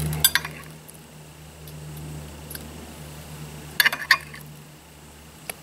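Metal tongs clinking against a stainless-steel wok and plate as raw chicken breasts are lifted into the wok: a cluster of sharp clinks just after the start and another around four seconds in, over a steady low hum.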